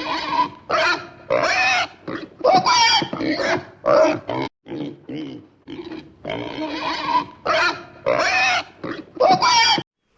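Farm animal calling over and over: a run of about a dozen short, loud pitched calls, many rising and then falling in pitch, with a brief break about halfway and a sudden stop near the end.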